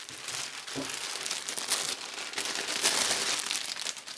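Clear plastic bag crinkling as a folded T-shirt is handled and pulled out of it, a continuous run of rustles and crackles.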